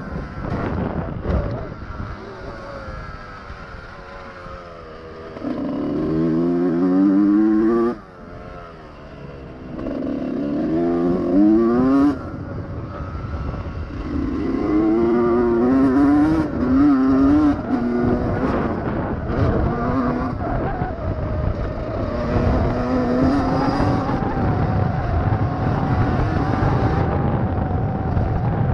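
2001 Honda CR125R two-stroke single-cylinder engine revving up again and again under acceleration, its pitch climbing in runs of about two seconds. The throttle is snapped shut about 8 and 12 seconds in. Over the last several seconds the engine runs at a steadier speed.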